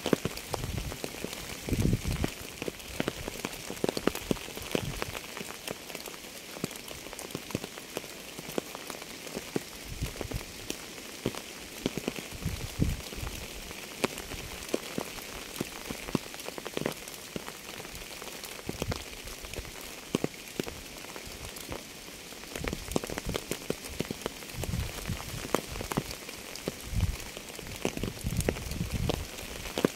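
Steady rain falling, with many separate drop hits and, every few seconds, a heavier, deeper drop striking close by.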